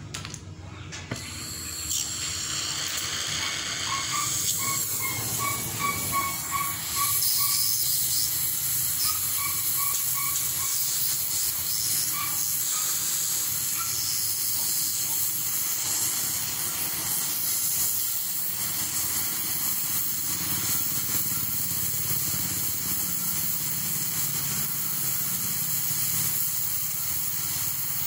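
Oxy-fuel cutting torch burning with a steady hiss as its flame and oxygen jet cut a circle through thick steel plate. The hiss swells about two seconds in, then holds steady.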